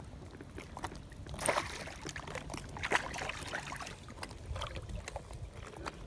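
Water sloshing and splashing around an inflatable float tube while a hooked fish is played on the line. The sharpest splashes come about one and a half seconds and three seconds in, over a steady low rumble.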